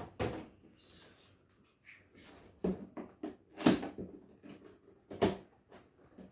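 Handling noise from unboxing a laptop: a series of short knocks and scuffs of the box and packaging being moved and opened, the loudest two about halfway through and about five seconds in.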